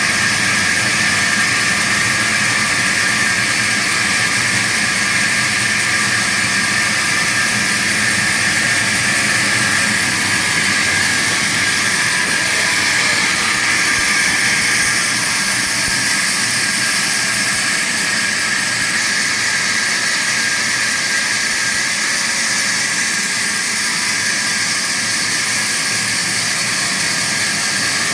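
Vertical wood-cutting band saw running, a loud, steady, even noise with no breaks.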